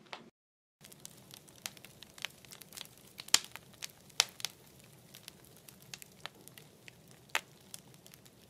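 Wood fire burning in a kiln firebox, crackling and popping irregularly over a low steady hum, with a few louder pops.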